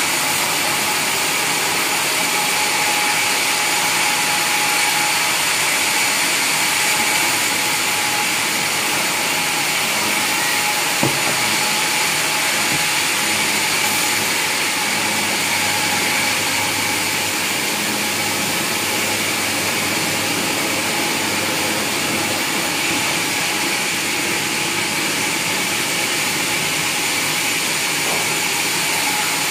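Sawmill saw running steadily with a constant mechanical drone and whine, and one short knock about eleven seconds in.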